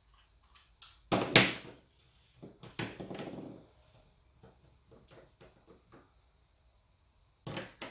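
Handling noise from small plastic Snap Circuits parts on a tabletop as screws are being worked out: a loud knock or clatter just after a second in, a short scraping rub around three seconds, then light taps and ticks.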